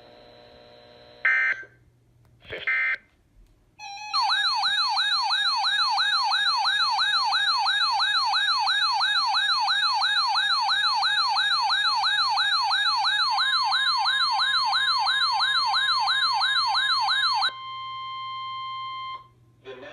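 Emergency alert tones: two short data bursts, then a loud siren-like warble that sweeps up and down about three times a second. About nine seconds into the warble a steady single tone, the weather-radio warning alarm, joins it. The warble stops near the end, leaving the steady tone alone for about two seconds.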